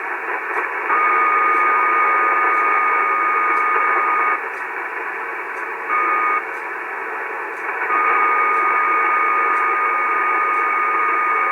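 Shortwave receiver on 75 m (3800 kHz, lower sideband) giving band hiss under an interfering steady buzzing tone that switches on and off. The tone is on for about three seconds, drops out, comes back in a short blip, then returns about eight seconds in. The operator cannot identify the interference, which he likens to a beacon.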